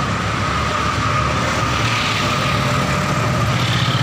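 Road traffic: a motor vehicle's engine running steadily close by, a low rumble with a faint steady whine above it.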